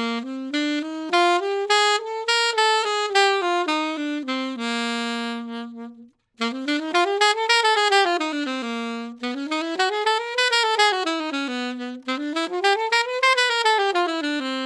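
Alto saxophone playing four fast jazz runs up and down a scale, each arching up and back down to a held low note, with a short break about six seconds in. It is played with bebop 'dooden' articulation: tongued downbeats and ghosted upbeats going up, tongued upbeats slurring into downbeats coming down.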